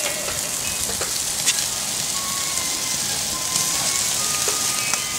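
Marinated beef short ribs sizzling on a barbecue grill: a steady hiss with a few short, sharp pops.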